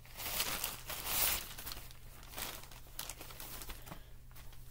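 Plastic mail-order parcel bag crinkling as it is pulled open and a garment is drawn out, in several rustles, the loudest in the first second and a half.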